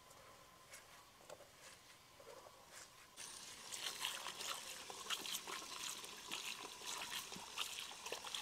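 Faint squishing of hands kneading salted shredded green papaya, then from about three seconds in, water from a garden hose running into a woven bamboo basket as a hand squeezes and rinses the shreds, crackling steadily. The rinse washes the salt and sap out of the papaya.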